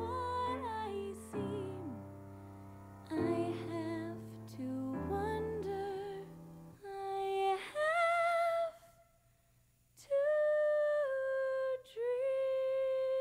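A girl singing a slow song with vibrato over instrumental accompaniment. Partway through the accompaniment drops out and she holds long, sustained notes alone, with two short breaks.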